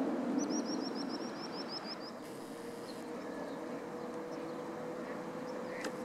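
Airbus A319's jet engines droning steadily as the airliner climbs away after takeoff, the sound fading over the first couple of seconds. A bird sings a rapid run of about a dozen short high chirps in the first two seconds.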